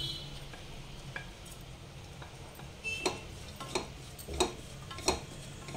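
Wooden spatula stirring and scraping ground nuts being roasted in ghee in a non-stick kadhai, in short strokes about every two-thirds of a second through the second half. A brief clink at the start as the bowl is tipped out against the pan.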